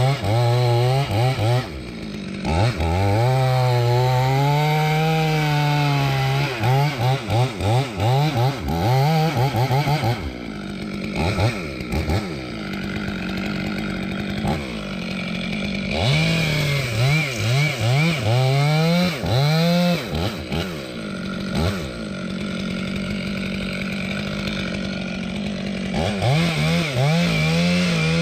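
Chainsaw revving up and down repeatedly as it cuts through dead wood. It is held high for a few seconds at a time, blipped quickly several times, and drops back to lower speed in between.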